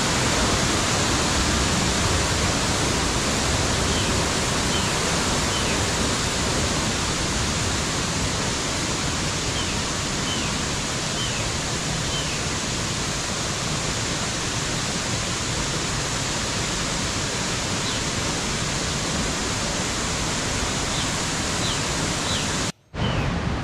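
Steady rush of water from a jungle waterfall and its stream, with a few faint, short rising chirps over it. The sound cuts out for a moment near the end.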